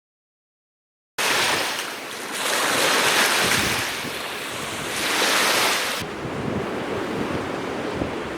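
Strong gusting wind blowing over the microphone, cutting in suddenly about a second in, then swelling twice and easing off near the end.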